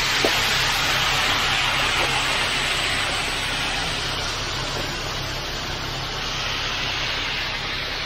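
Ready-mix concrete truck running steadily while loose, high-slump concrete slides down its chute with a continuous rushing hiss, over the steady hum of the truck's engine.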